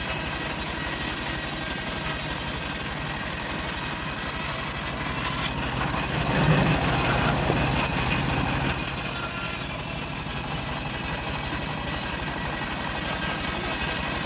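A small engine running steadily, with a louder, harsher stretch in the middle lasting about three seconds.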